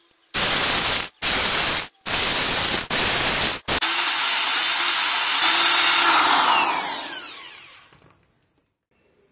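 Electric drill boring holes through an aluminium tube: a few short, abrupt bursts in the first few seconds, then a longer run that winds down with a falling whine and fades out about two-thirds of the way through.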